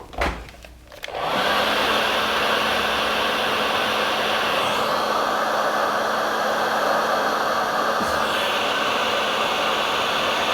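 A knock, then a heat gun switched on about a second in, blowing steadily with a faint hum as it shrinks heat-shrink tubing onto a speaker cable. Its rush shifts slightly in tone twice.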